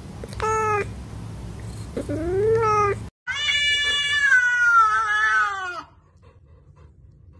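Cat meowing: two short meows, the second rising and then falling, followed by one long drawn-out meow that slowly drops in pitch.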